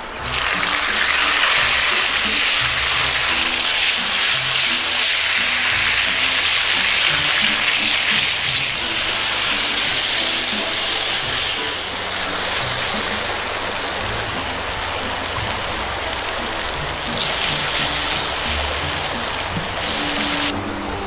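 Broth boiling hard in a pot over a wood fire: a steady, loud hiss of bubbling liquid, a little quieter in the second half.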